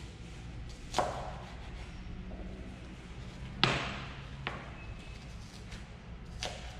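Chef's knife chopping red onion on a plastic cutting board: four separate sharp knocks of the blade hitting the board, the loudest a little past halfway.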